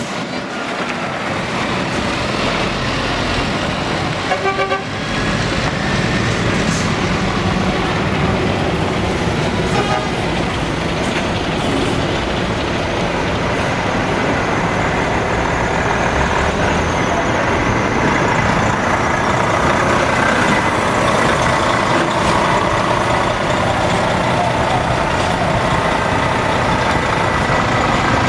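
Heavy truck tractor units (Scania, DAF, Volvo) pulling slowly past one after another, their diesel engines running, with brief horn toots about four and a half seconds and ten seconds in.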